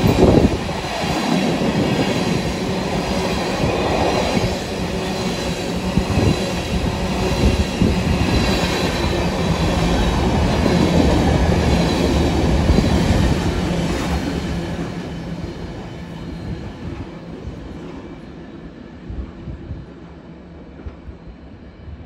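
Union Pacific freight train of empty oil tank cars passing at speed, the steel wheels rumbling on the rails. The sound fades away over the last several seconds as the end of the train goes by.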